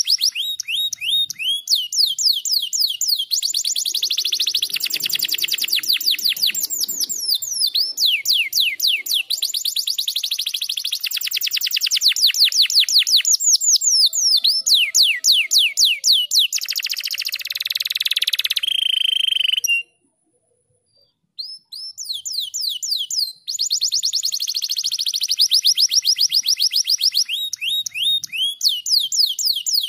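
Canary singing: long fast trills of rapidly repeated falling whistled notes, the runs changing speed and pitch, with a short buzzy passage near the middle. The song breaks off for a second or two about two-thirds through, then the trills resume.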